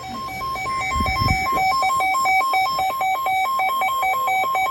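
Weather radio receiver's electronic alert alarm: rapid beeping that alternates between two pitches, sounding for a severe thunderstorm warning. A few low thumps come about a second in.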